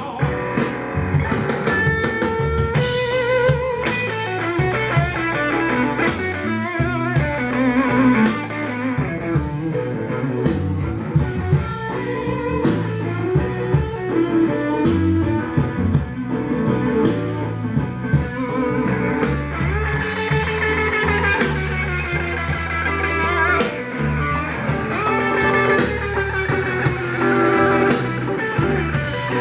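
Instrumental blues music led by electric guitar, with bent notes, over bass and drums.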